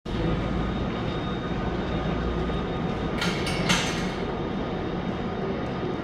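Meitetsu Nagoya Main Line train running toward a level crossing with its barriers lowered: a steady low rumble, with a short burst of hiss a little after three seconds in.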